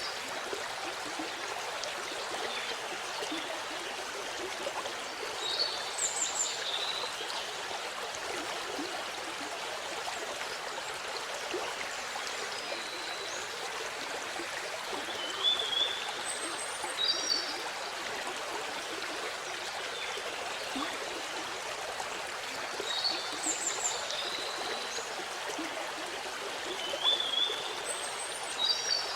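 Waterfall water rushing steadily, with short high bird calls every few seconds over it.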